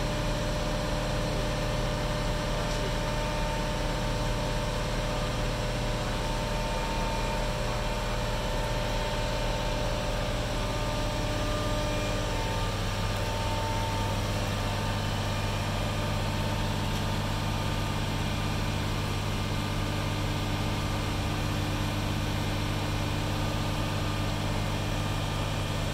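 Mobile crane's engine running steadily while it holds a sailboat hull in slings: a continuous low drone that grows a little stronger about halfway through.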